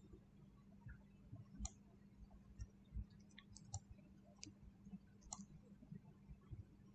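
Faint computer mouse clicks: about half a dozen sharp, irregularly spaced clicks over a faint steady low hum.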